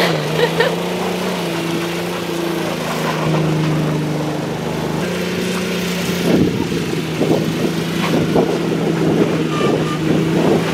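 Ford Explorer's V6 engine held at high revs while the SUV spins donuts in snow, its pitch stepping up and down as the throttle is worked. From about six seconds in, a rough crackling noise runs under the engine.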